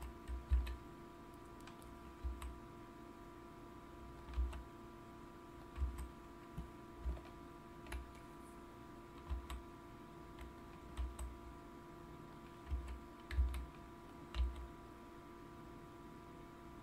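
Computer keyboard keys and mouse buttons being pressed at irregular intervals, each a short click with a soft thump, over a faint steady electrical hum.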